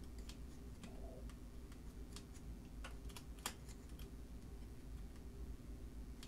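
Sparse, irregular light metallic clicks, the loudest about three and a half seconds in, as a steel pick nudges the register number wheels of a 1925 Burroughs Class 5 mechanical calculator. The wheels and carry mechanism are stiff with dried old oil and are being worked loose.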